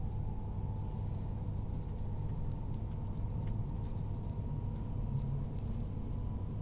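Inside a moving Queensland Tilt Train: a steady low running rumble with a faint whine that slowly rises in pitch, and scattered faint light ticks.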